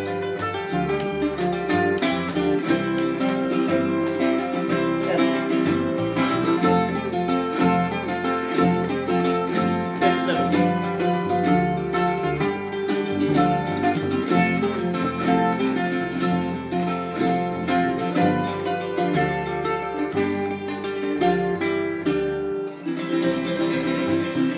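Ten-string, all-steel-string tiple, custom-built by Aaron Oya, played solo in a quick, continuous run of picked and strummed chords. The steel strings in double and triple courses give it a bright, chiming, mandolin-like sound.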